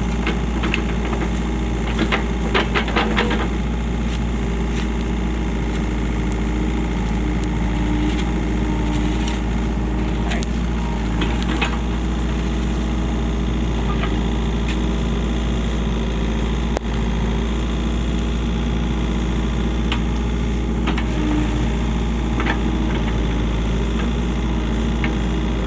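Excavator engine running steadily under work, with a quick cluster of sharp knocks about two to three seconds in and a few single knocks later.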